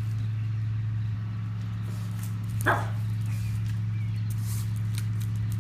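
A pug gives one short bark about two and a half seconds in, over a steady low hum.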